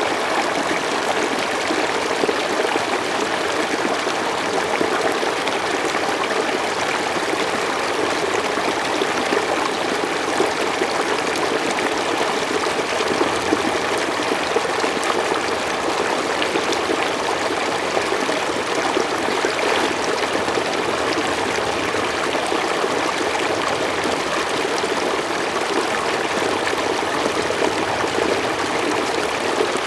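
Mountain stream flowing steadily over rocks, an even rushing with small splashes and trickles.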